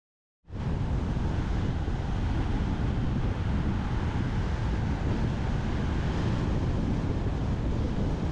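Wind buffeting the microphone of a camera on a bicycle descending fast: a steady rush of noise, heaviest in the low end. It cuts in about half a second in after a moment of dead silence.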